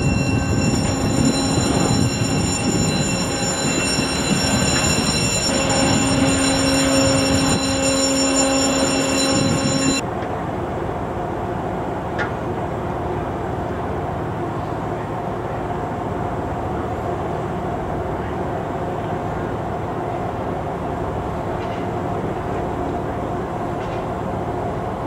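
Steady loud machinery noise with several high whining tones, cutting off abruptly about ten seconds in to a quieter, lower steady hum.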